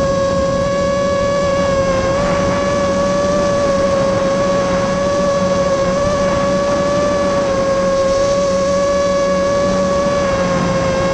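ImmersionRC Vortex 250 Pro FPV quadcopter's brushless motors and propellers, heard from its onboard camera: a steady high whine with overtones over a constant hiss, holding a nearly even pitch in cruising flight.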